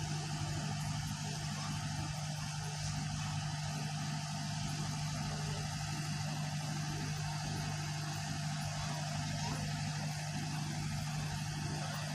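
A steady, unchanging engine hum with a constant low pitch.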